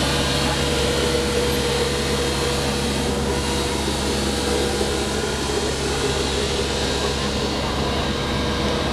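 Compact sidewalk street sweeper running close by, its engine and suction fan giving a steady drone with a faint held whine.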